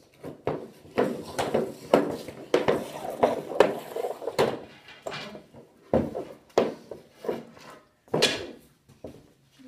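Rubber hockey pucks and a hockey stick clacking on a synthetic ice board: a run of sharp knocks, one or two a second, some with a short ring, as pucks are raked from a pile and shot.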